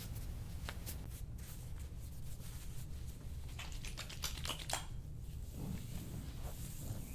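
Faint rustling and scattered small clicks of hands and body moving against clothing and the padded treatment table, with a denser patch of clicks and rustling about halfway through, over a steady low room hum.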